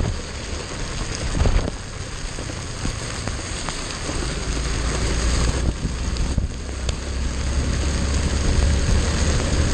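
Motorcycle riding in heavy rain: a dense hiss of rain and tyre spray over the bike's engine, with a low rumble that grows stronger through the second half.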